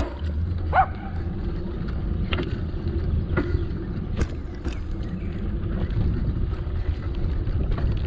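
Steady low rumble of riding a bicycle, with wind buffeting the microphone and scattered light clicks and rattles. There is a short falling squeak about a second in.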